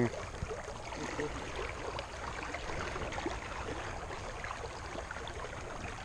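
Steady rush of a shallow river flowing.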